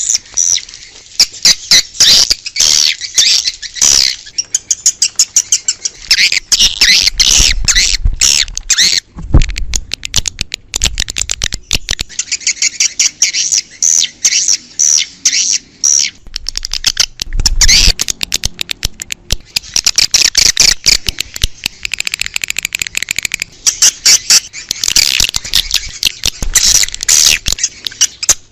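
Swiftlet calls in a dense, continuous chorus of rapid, high chirps and twitters: a recorded swiftlet lure sound, played to call swiftlets in.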